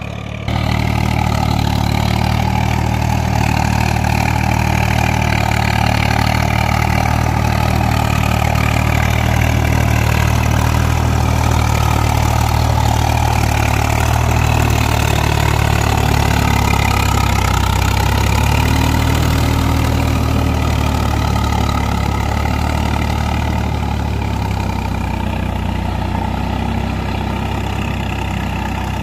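Swaraj 855 FE tractor's diesel engine running steadily under load while it drives a rotavator through a flooded paddy field. It gets louder about half a second in and eases off a little near the end.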